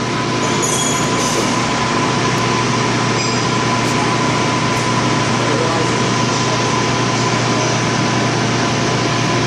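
Metal lathe running steadily, a constant whine over the motor noise, as the cutting tool is brought in about ten thousandths for a light cleanup pass to true up stock running off-centre in a three-jaw chuck.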